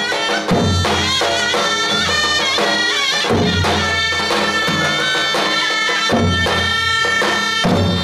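Turkish davul-zurna folk music: a shrill, reedy zurna melody over the booming strokes of two large double-headed davul bass drums, with lighter stick taps between the heavy beats.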